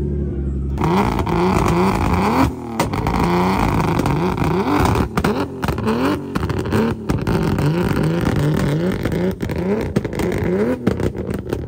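BMW E30's engine revved hard in quick repeated blips, about two a second, starting about a second in. Sharp pops and bangs come from the exhaust as it shoots flames.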